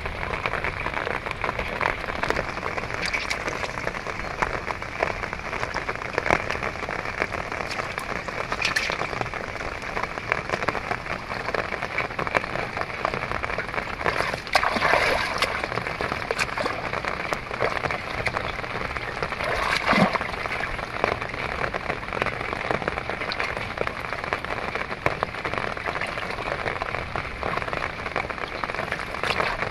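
Steady pattering and splashing of shallow muddy water, with a few louder splashes, as hands grope through it.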